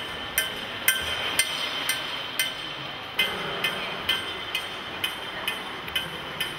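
Steady metallic tapping, about two strikes a second, each strike with a short bright ring, keeping an even beat like a metronome.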